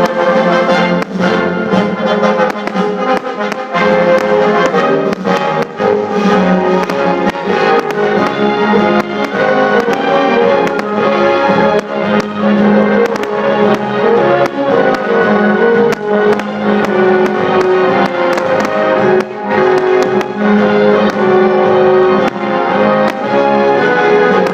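Music led by brass instruments playing a melody, with frequent short sharp clicks or cracks.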